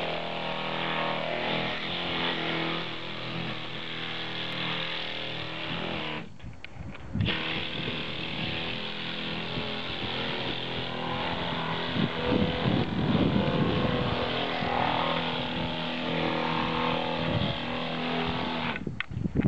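Compressed-air sander sanding antifouling paint off a yacht hull: a steady hiss with a motor hum. It cuts out briefly about six seconds in and again near the end, and is rougher and louder for a couple of seconds in the middle.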